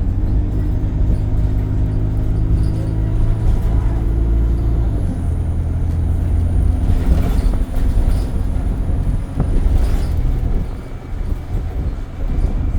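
Alexander Dennis Enviro 200 bus running, heard as a heavy low rumble with steady droning tones from the engine and its loud air compressor; the drone changes pitch about five seconds in. Two short hisses of air come in the second half.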